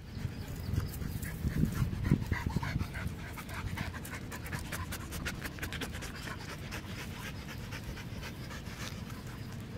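Dogs panting in quick, short breaths, one close by.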